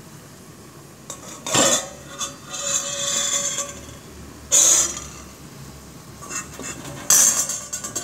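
Metal spoon clanking against a metal saucepan of boiling luffa: three loud ringing clanks about three seconds apart, with scraping between the first two.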